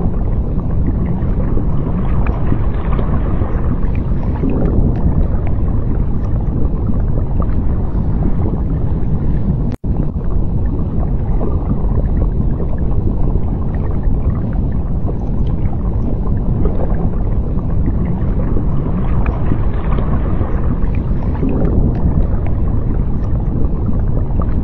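Steady low rumbling water noise, like underwater ambience. It cuts out for an instant about ten seconds in.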